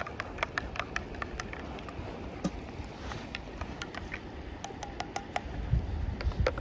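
Wood fire crackling in a small wood-burning camp stove, with irregular sharp pops and snaps. Wind rumbles on the microphone near the end.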